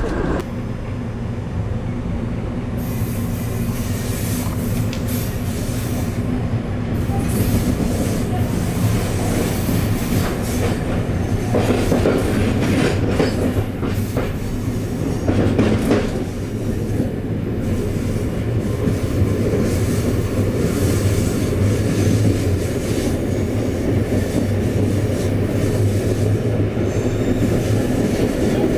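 Amtrak Silver Star passenger train under way, heard from inside the car: a steady rumble of wheels on rail over a low steady hum, briefly louder about twelve and sixteen seconds in.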